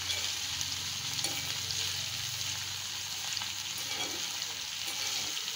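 Sliced ivy gourd sizzling in hot oil in a pan while a steel spoon stirs it, with light scraping and small clicks of the spoon against the pan. The gourd is being sautéed until it softens.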